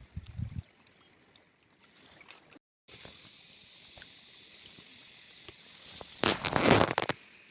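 Water sloshing and splashing in a flooded rice paddy as fish are caught by hand, with low thumps at the start and a loud splash about six seconds in.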